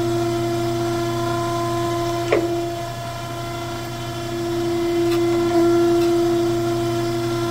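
Okamoto surface grinder running with a steady hum from the spindle and wheel as the table traverses, with a single click about two seconds in. Near the end the wheel touches the high spot of the steel prism dry, throwing sparks.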